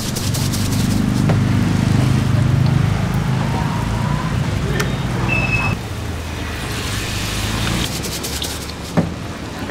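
A motor vehicle's engine running close by over street noise, loudest in the first few seconds and dropping off abruptly about six seconds in; a sharp click comes near the end.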